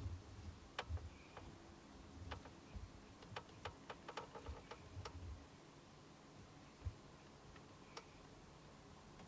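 Faint handling noise from a handheld camera: scattered small clicks, a quick run of them about three to five seconds in, over soft low bumps, with a single thump near seven seconds.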